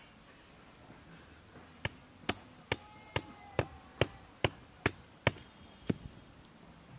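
A run of about ten sharp, hard knocks, a little over two a second, from something being struck by hand, starting about two seconds in and stopping near the end.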